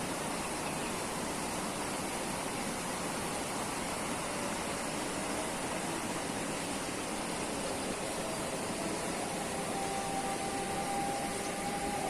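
Steady rush of a fast-flowing river. A faint hum comes in near the end.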